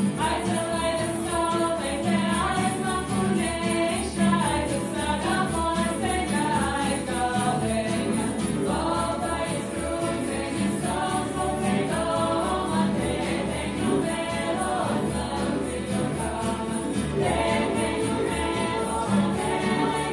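Women's folk group singing a Latvian folk song together in several voices, accompanied by jingling bells.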